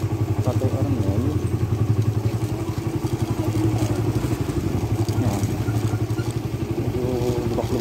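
Suzuki motorcycle engine running steadily with a fast, even pulse, heard from the rider's seat.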